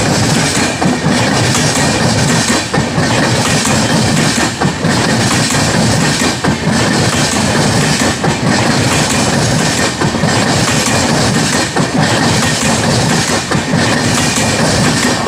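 A passenger train of LHB coaches passing close at about 50 km/h, its wheels clattering over the rail joints. The noise rises and falls about every two seconds as each coach goes by.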